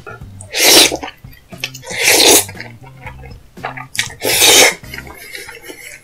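Three loud slurps of black bean noodles (jjajangmyeon), each about half a second long and a second or two apart.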